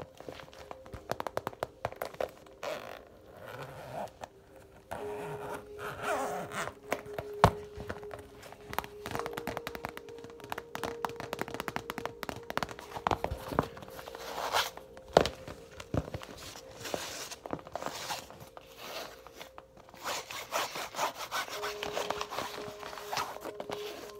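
Fingers tapping, scratching and rubbing on assorted objects for ASMR: a dense run of quick taps and scraping rubs, with a few sharper knocks standing out.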